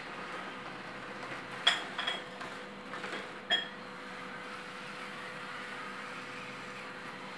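Small remote-controlled wheelchair prototype's drive motors running with a steady faint hum as it drives. Two sharp metallic clinks that ring briefly, about a second and a half in and again about two seconds later, as it knocks against the metal obstacles.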